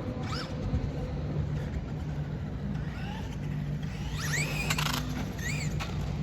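Electric RC car motor whining in short rising-and-falling bursts as the throttle is blipped, several times, the longest about 4 s in, over a steady low hum.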